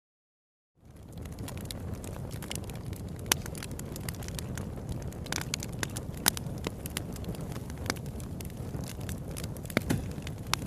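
A steady low rumble with scattered sharp crackles and pops. It starts about a second in, after a moment of silence.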